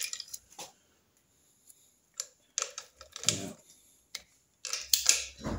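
Hand socket ratchet clicking in short, separate bursts as it is worked on the stator's retaining nuts to check their tightness, with light metal handling knocks between.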